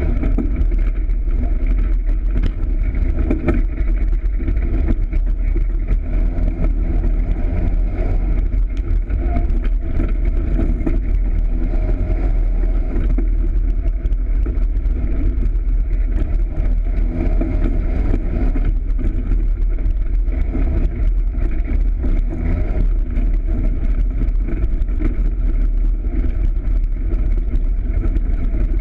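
Polaris RZR side-by-side's engine running steadily as it drives over a rough, rocky trail, with frequent small knocks and rattles.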